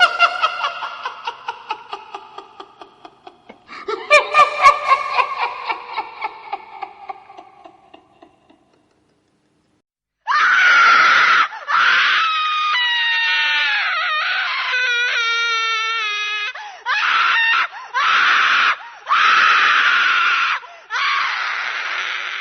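Scary ringtones played back: a pulsing laugh that fades out, heard twice, then after a short silence a run of loud screams with gliding, wavering pitches, broken into several bursts.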